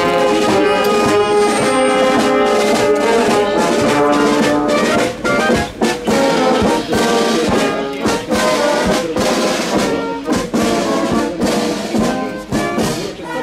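Military brass band playing, trombones and trumpets holding chords; sharp drum strokes join in from about five seconds in.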